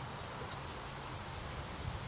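Honeybees buzzing steadily around an opened hive, a low continuous hum; the bees are agitated.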